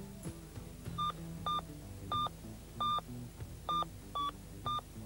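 Car-phone handset keypad beeping as a number is keyed in: seven short, high beeps at uneven intervals, all at the same pitch.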